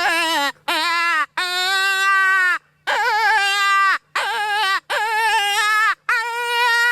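Rabbit distress cries blown on a Zepp's Badlands Gunner hand predator call. It makes a string of about seven high, wavering wails, each under a second or so, with short breaks between.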